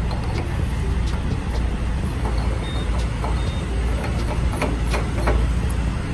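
Steady low rumble of idling diesel trucks at the fuel island, with a few sharp clicks near the end as the semi truck's fuel cap is twisted shut on the tank's filler neck.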